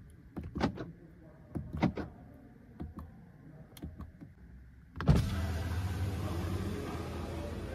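Several short clicks from the window switches on the Geely Xingrui's driver's door. About five seconds in, the electric window motor starts and runs steadily as the side glass goes down.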